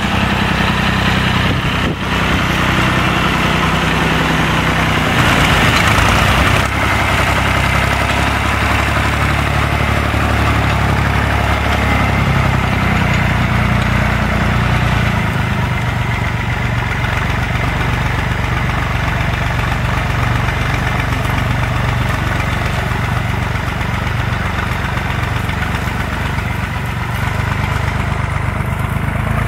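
Massey Ferguson 135 tractor engine running steadily while it tows a drag harrow across grass.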